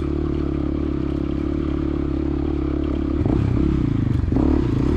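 Motorcycle engine running with a steady low note; about three seconds in the note changes and gets slightly louder.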